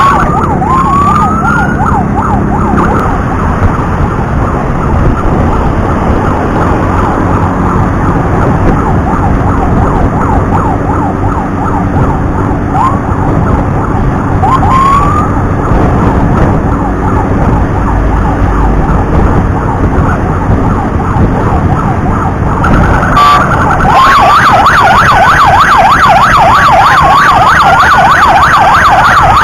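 Emergency siren of an escorted ambulance sounding in a fast warble, with a few short rising whoops. About 24 s in it gets louder as a slow rising-and-falling wail joins. A steady low road rumble runs underneath.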